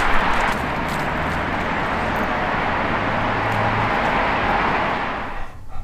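Steady outdoor background noise: a broad hiss with a faint low hum, fading out near the end.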